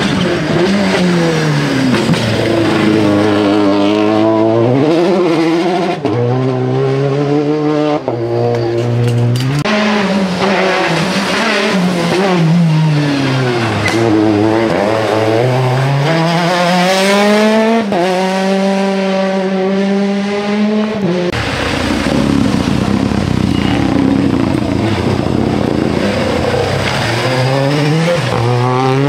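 Rally car engines at full throttle on a tarmac stage, one car after another: Citroën DS3, Peugeot 208 and Renault Clio rally cars. The engine note climbs and falls again and again, with sudden drops at the gear changes and lifts off the throttle for the corners.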